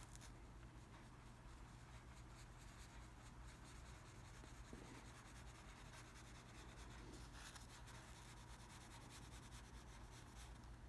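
Faint rubbing of a soft East Asian painting brush dragging paint across paper, over a low steady hum.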